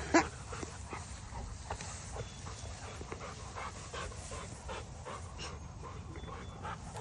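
Dogs panting and moving through tall grass, with soft, irregular rustling.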